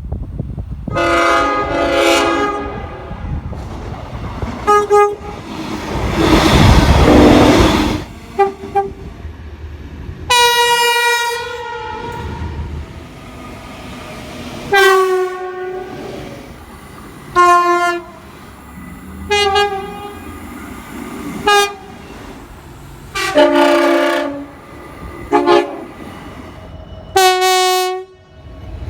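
Train air horns sounding a series of chord blasts: a couple of long ones near the start and about a third of the way in, then a run of about a dozen short toots, some in quick pairs. A loud rushing noise, like a train going by, fills a stretch of about two seconds early on between the horn blasts.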